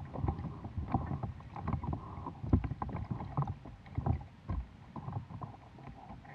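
Kayak paddling: a double-bladed paddle dipping and pulling through lake water in repeated strokes, with irregular short splashes and drips and water slapping the hull of an Oru Bay ST folding kayak.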